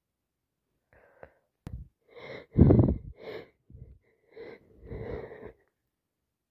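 A woman with a head cold sneezing and sniffing: a run of short breathy bursts from about a second in, the loudest just before halfway, dying away about two-thirds of the way through.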